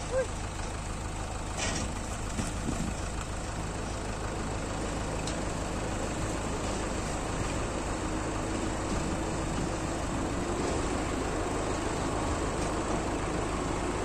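Tipper truck's diesel engine running steadily while its raised bed tips out a load of earth and rocks, its note growing a little louder and stronger from about halfway through. A short knock about a second and a half in.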